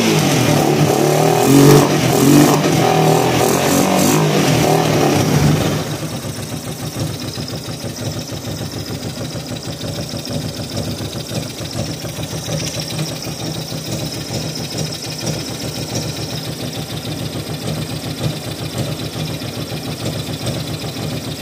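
Honda Transalp's carburetted twin-cylinder engine running with its carburettor intakes open. It is revved for about the first six seconds, then drops to a steady idle. The owner suspects dirt in the carburettors.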